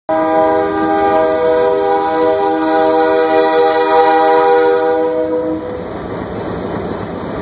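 Diesel locomotive air horn blowing one long chord close at hand, cutting off about five and a half seconds in. The rumbling running noise of the slowly moving train follows.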